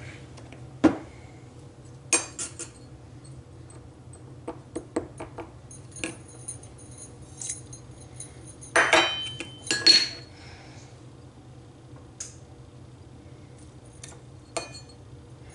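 Stainless steel measuring cup clinking and knocking against a stainless steel mixing bowl while brown sugar is measured and tipped in. Scattered light clicks and scrapes, with the loudest knocks, which ring briefly, grouped about nine to ten seconds in.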